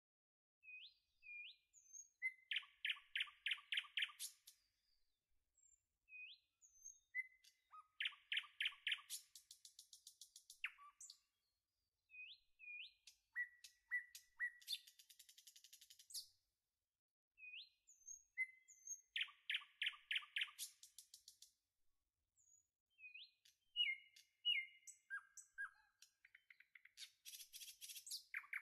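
A songbird singing the same song five times, about every five to six seconds: a few short rising chirps, then a fast trill of notes, ending in a high buzzy rattle.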